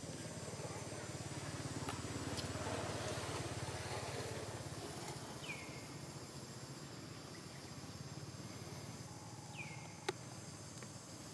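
Outdoor ambience of a steady high insect hum over low wind rumble, with two short chirps sliding downward in the second half and a single sharp click near the end.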